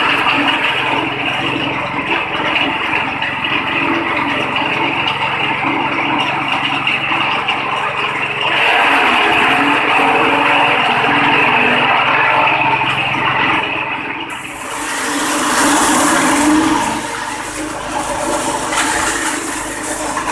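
Forage chopper driven by a 6.5 hp petrol engine, running steadily while grass stalks are fed through its rollers and six-blade cutter. The chopping noise grows louder about eight seconds in. Around fourteen seconds in, the sound changes abruptly, turning brighter and more hissy, and the machine's hum carries on.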